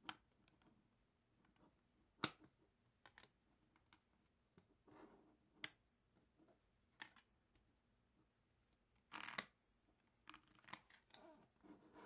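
Mini magnet balls clicking against each other and against a plastic card as a block of them is pressed and squared up by hand: scattered sharp single clicks, a short rattling burst about nine seconds in, then a few quick small clicks.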